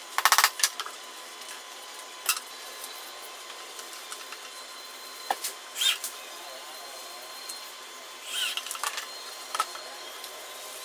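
A quick run of hammer taps on a drawer-box panel, loudest in the first half second, followed by scattered single knocks and clatter as the wooden box is worked and handled.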